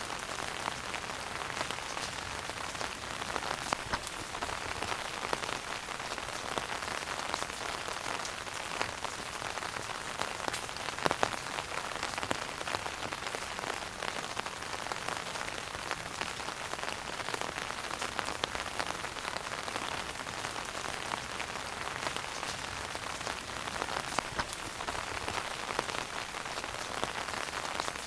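Wood fire burning in a fireplace: a steady hiss scattered with many small crackles, and one louder pop about eleven seconds in.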